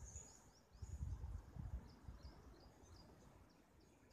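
Faint outdoor ambience of small birds chirping, with short high calls repeating, and a high thin steady buzz that stops about a second in. Low muffled rumbles on the microphone are loudest between about one and two seconds in.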